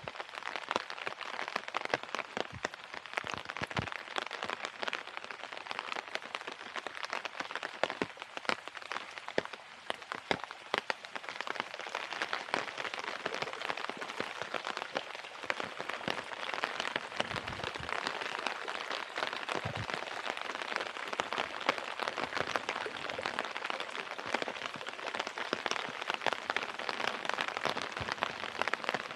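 Steady rain falling on surfaces, a dense run of small drop hits.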